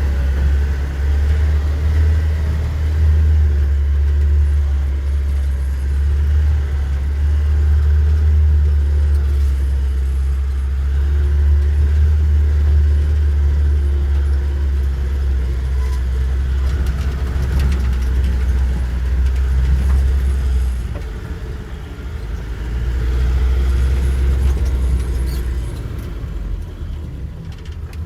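Car engine running under way, a steady heavy low rumble that eases off twice in the last third, with a few light clicks near the end.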